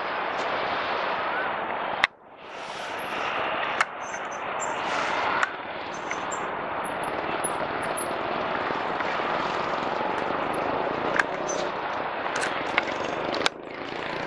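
Steady road-traffic noise, broken several times by sharp clicks where the sound jumps in level at cuts between clips, with a few faint high chirps in the middle.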